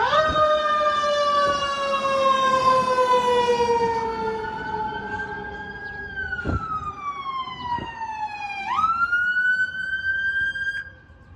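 Fire apparatus sirens wailing, two overlapping at first; the main tone slides slowly down in pitch for about eight seconds, then sweeps sharply back up about nine seconds in and climbs again.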